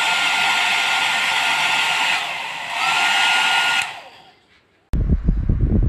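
KADONIO 800W hair dryer running: a steady airflow hiss with a high-pitched motor whine. It dips briefly about two seconds in, picks back up, and is switched off about four seconds in, fading away. About a second before the end, a click is followed by low, gusty rumbling like air buffeting the microphone.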